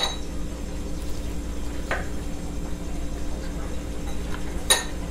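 A few light clinks of tableware while eating: one right at the start, a fainter one about two seconds in, and a sharper ringing one near the end, over a steady low hum.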